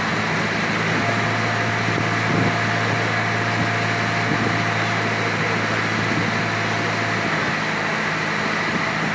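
Motor launch's engine running steadily under way, a low hum that eases a little about seven seconds in, over the rush of water churning along the hull from the boat's wake.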